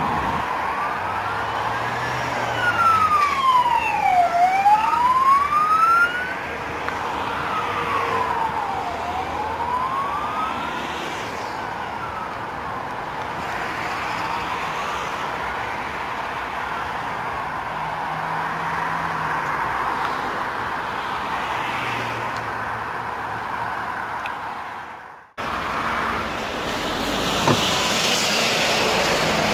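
An emergency vehicle's siren wails, sweeping slowly down and up in pitch about every four to five seconds and growing fainter, over a steady hiss of road traffic. In the last few seconds the siren is gone and only the traffic remains.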